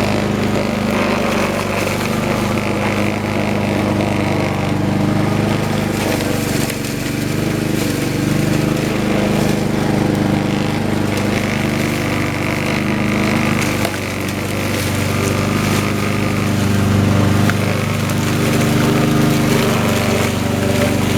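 Troy-Bilt 21-inch walk-behind lawn mower engine running steadily while cutting tall grass, its sound rising and easing a little as the load changes.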